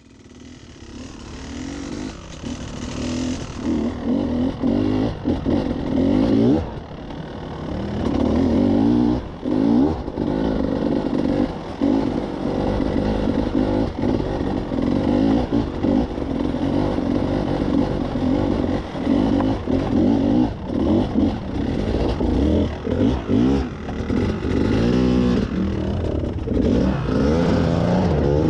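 Enduro dirt bike engine revving in short bursts as the throttle opens and closes while riding over a wet, rocky trail, fading in over the first few seconds.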